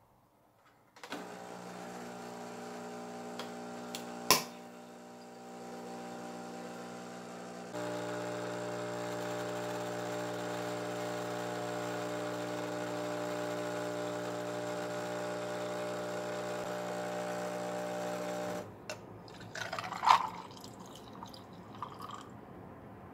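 Nescafé Dolce Gusto Genio S capsule coffee machine brewing: a steady pump hum starts about a second in, with a sharp click a few seconds later, grows louder and fuller about seven seconds in, and stops suddenly after about seventeen seconds. Then coffee is poured from one glass into another, with clinks of glass and ice.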